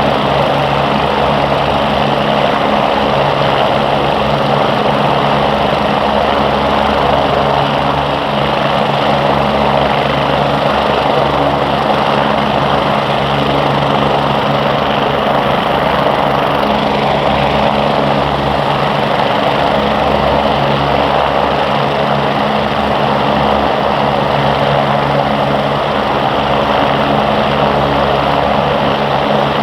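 MBB/Kawasaki BK117 twin-turboshaft helicopters running steadily: a constant rotor and turbine drone with low, unchanging tones.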